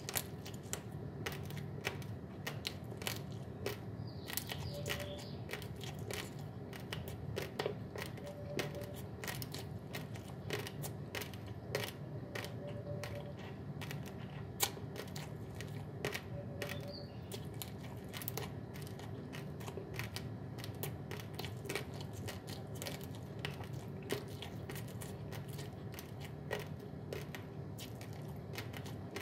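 Raw, uncooked basmati rice grains being chewed close to the microphone: a dense run of sharp, irregular crunches and crackles, over a steady low hum.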